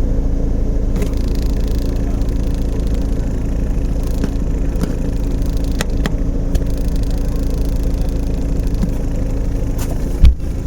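Toyota 86 (ZN6) automatic idling in Drive at a standstill: a steady low drone from the FA20 flat-four with a buzzing rattle from the left rear, where the thin one-way rubber flap in the body air-extraction duct resonates with the idle vibration. Near the end there is a single loud thump.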